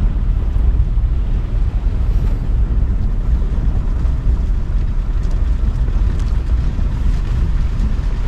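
Maruti Gypsy safari jeep driving: steady low engine and road rumble, with wind buffeting the microphone.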